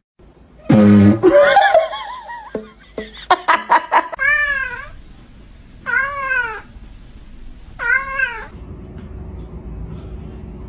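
A domestic cat meowing: three drawn-out meows, each rising then falling in pitch, after a loud burst of other cries and squeals early on.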